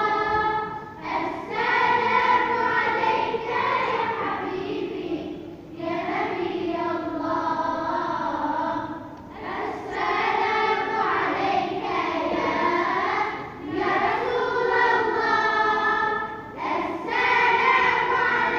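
A group of voices singing together in long, held phrases, with short pauses for breath about every three to four seconds.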